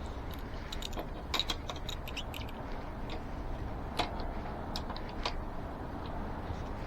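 Scattered light metallic clicks and taps of hand tools, a crescent wrench among them, being handled on an e-bike's rear wheel, with a sharper click about four seconds in, over a low steady background hum.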